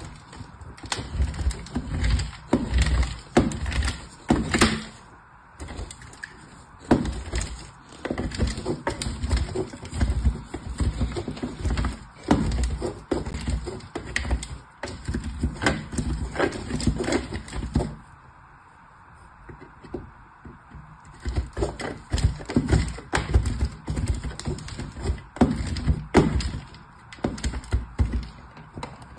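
Bar of soap rubbed against a metal box grater in quick, repeated scraping strokes, stopping briefly twice.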